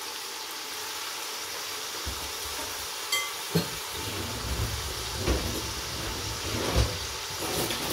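Chicken and vegetables sizzling gently in oil in a stainless steel pot on a gas burner: a steady hiss, with a few light knocks from about three and a half seconds in.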